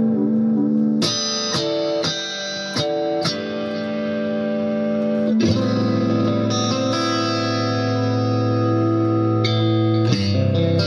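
Clean electric guitar with single-coil pickups, played through a small amp and a LEKATO R COMP compressor pedal. A few quick chords are struck, then a chord held about halfway through rings on with long, even sustain, and new notes start near the end.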